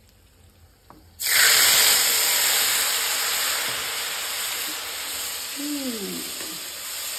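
Wet paste of ground black pepper, garlic and cardamom hitting hot tempering oil in a kadhai: a sudden loud sizzle starts about a second in and eases off slowly.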